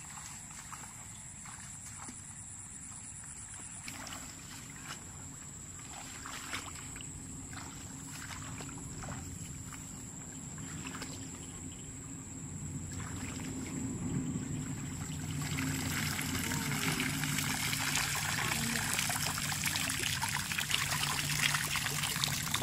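Rustling and brushing through tall grass, then from about two-thirds of the way in, water pouring out of an upturned plastic bottle in a steady splashing stream.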